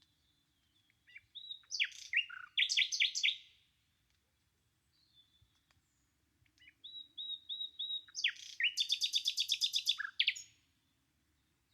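Nightingale singing two phrases a few seconds apart, the second ending in a fast run of rapidly repeated notes.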